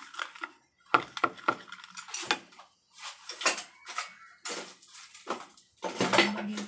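Chopsticks beating batter in a ceramic mixing bowl: irregular clicks and taps against the bowl, with short pauses.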